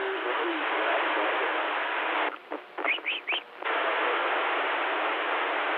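CB radio receiver hiss, narrowed to the radio's audio band. About two seconds in, a station keys up and quiets the hiss for about a second and a half, carrying a few short rising chirps, before the hiss returns.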